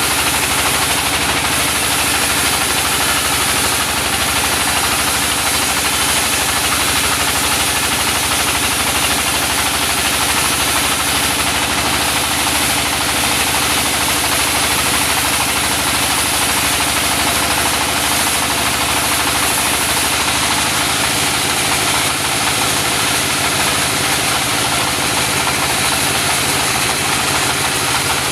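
Small mobile sawmill running steadily as its saw blade rips a large mindi log into boards. The engine's steady drone sits under a dense, continuous hiss of cutting, unbroken throughout.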